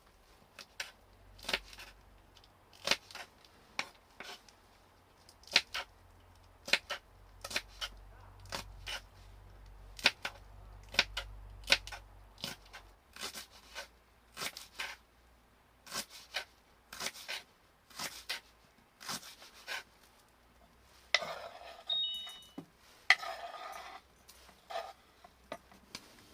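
A string of sharp, irregular clicks and light knocks, about one or two a second, from things being handled. There is a brief rustling clatter near the end.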